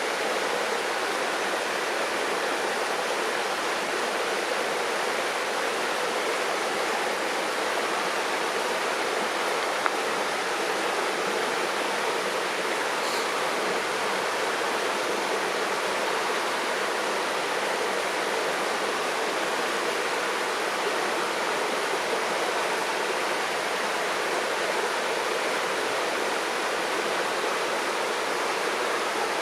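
River water rushing and babbling in a steady, unbroken wash, with one faint click about ten seconds in.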